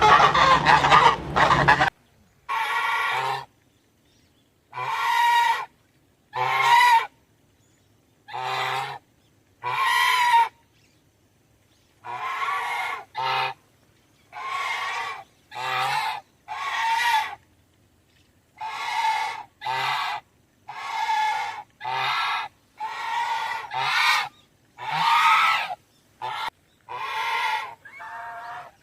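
Geese honking: a dense run of overlapping honks for the first two seconds, then some twenty single honks, each about half a second long, separated by short silent gaps.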